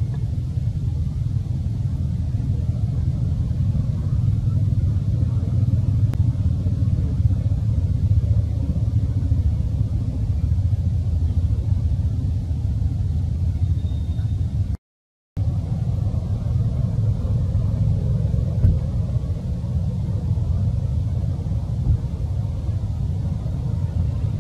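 Steady low rumble that drops out completely for about half a second midway.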